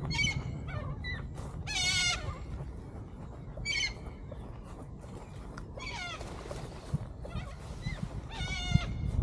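A series of short, wavering animal calls, about five in all, each under half a second, spaced a second or two apart, over a steady low rumble.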